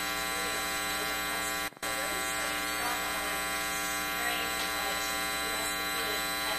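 Steady electrical mains hum with many overtones running through the audio, cutting out completely for a moment about a second and a half in. Faint, distant speech lies underneath.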